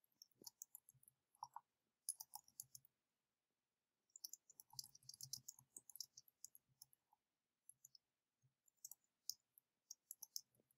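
Faint typing on a computer keyboard: quick runs of keystrokes lasting a second or two, separated by short pauses.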